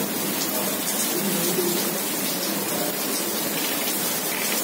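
Heavy rain falling steadily onto wet paving and grass.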